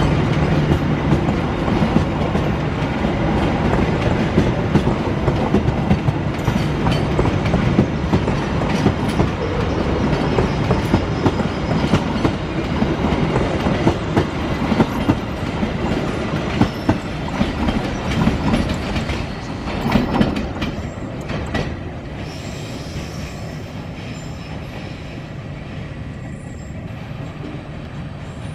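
Passenger coaches of a train rolling past close by, their wheels clicking rapidly over the rail joints. The clatter eases off about two-thirds of the way through as the train moves away.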